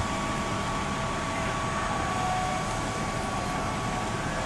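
Parked fire trucks' engines running: a steady mechanical hum with a few faint steady tones.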